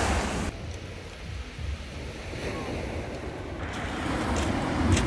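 Sea waves washing ashore, with wind rumbling on the microphone.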